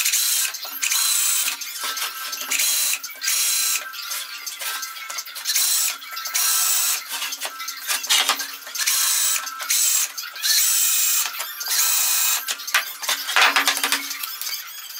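Electric jigsaw cutting through OSB board in repeated short bursts, each about a second long with brief gaps between, stopping near the end.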